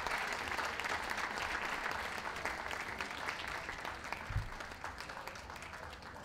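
Crowd applauding around a show ring, the clapping slowly fading away, with one brief low thump about four seconds in.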